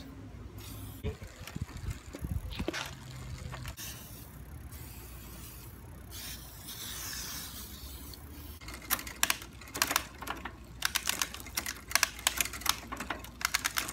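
WD-40 aerosol hissing as it is sprayed onto a bicycle chain, followed in the second half by many quick, irregular clicks.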